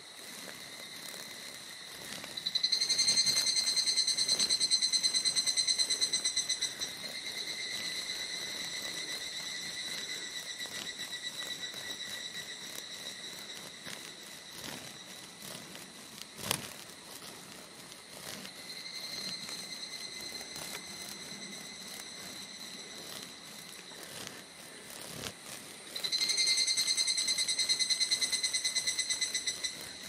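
Male evening cicadas (higurashi, Tanna japonensis) singing: rapid trains of pulses on one high pitch, starting loud and tapering off softer and slightly lower. Two loud songs come in, about three seconds in and again near the end, with fainter song between. A single sharp click sounds about halfway through.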